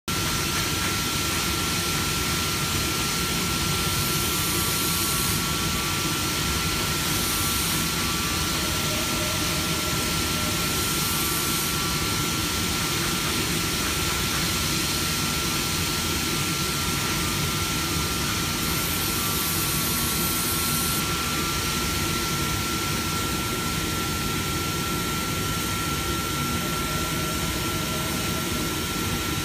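CNC flatbed knife cutter cutting snowboard base sheet: a steady rushing machine drone with a constant high whine, and brief high whirs of the moving cutting head four times.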